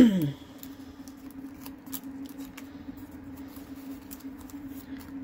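Small crinkling clicks and ticks of folded paper cupcake liners and a pipe cleaner being handled and twisted together, over a steady low hum.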